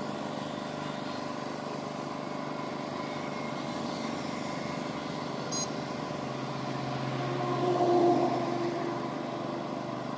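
Air compressor running steadily to feed a paint spray gun. A louder engine-like swell rises and fades about seven to nine seconds in.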